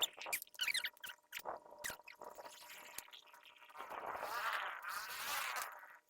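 Tree trimming: short squeaks and sharp clicks in the first second or two, then a longer rustle of leafy branches from about four seconds in.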